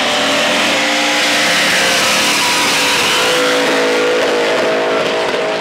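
A car engine held at high revs through a power skid, its rear tyres spinning in place on the drag strip. The engine note climbs about three and a half seconds in and holds high, wavering slightly.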